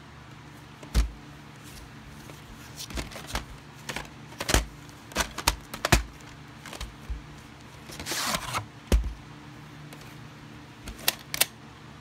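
Irregular plastic clicks and knocks from a VHS cassette and its case being handled, with a brief scraping rustle about eight seconds in, over a faint steady hum.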